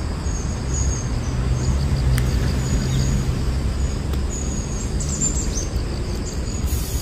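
Outdoor ambience: a steady low rumble of distant traffic, with small birds chirping in short repeated calls above it.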